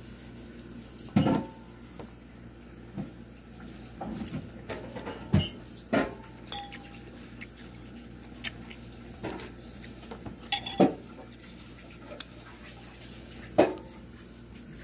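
Metal fork and spoon clinking and scraping against a ceramic soup bowl: a dozen or so irregular clinks, a few with a brief ring.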